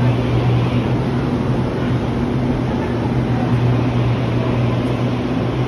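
Steady low hum of a Taiwan Railway EMU800 electric train standing at the platform, its onboard equipment running.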